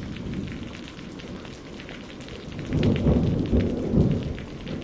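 Steady rain with thunder. A low rumble of thunder builds about two and a half seconds in and is loudest in the second half.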